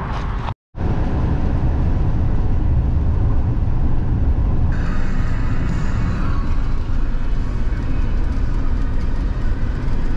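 Steady low rumble of a converted school bus driving on the highway, heard from inside the cabin. The sound drops out briefly about half a second in.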